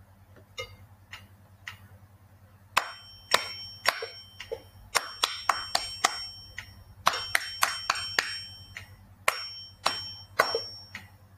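Hand claps beating out a rhythm exercise, a mix of evenly spaced single claps and quicker runs of claps, after a few faint count-in ticks. A high ringing tone sounds over several groups of claps.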